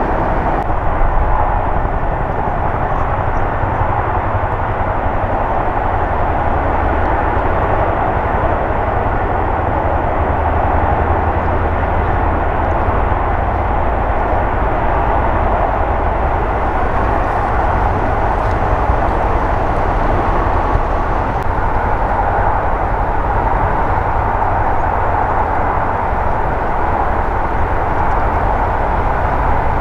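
Military helicopter turbine engines and rotors running on an airfield: a steady, unbroken rumble with a hiss on top.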